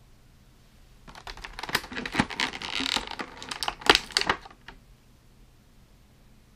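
Clear plastic packaging tray clicking and crackling as a small plastic accessory is pried out of its slot: a quick flurry of sharp clicks for about three and a half seconds, with the loudest snap near the end.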